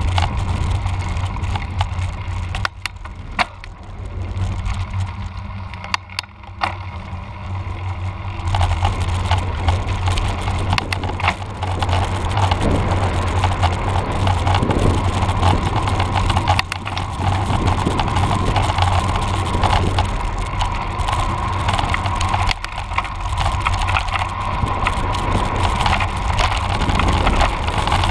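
A cross bike being ridden: a steady rumble of tyres on the road with the bike rattling and clicking, over a low steady drone that dips briefly a few seconds in.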